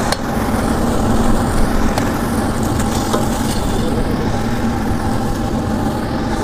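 Ciba chili paste frying in a giant wok of hot oil: a loud, steady sizzle over a constant low drone with a hum.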